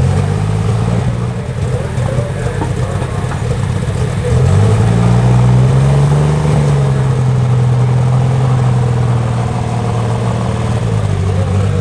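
Unlimited super stock pulling tractor's engine running at low speed after its pull. About four seconds in it is throttled up: the pitch rises, eases back a little and then holds steady as the tractor drives off.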